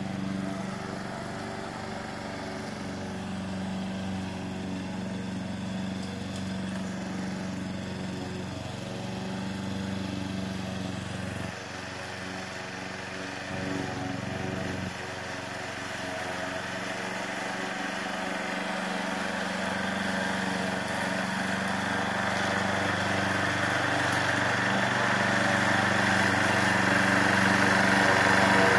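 Small gasoline engine of a remote-controlled walk-behind lawn mower running steadily as it mows, getting louder over the last several seconds as the mower comes closer.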